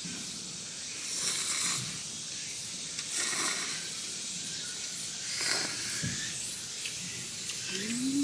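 A person slurping instant cup noodles and sipping the broth, three short slurps about two seconds apart, with a brief hummed 'mm' near the end.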